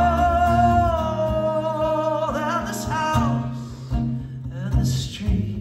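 A man's voice holds a long sung note through a PA over an acoustic guitar, the note sinking a little and breaking into vibrato a few seconds in. The guitar then plays on more quietly. It is a live solo acoustic performance recorded on a phone in the audience.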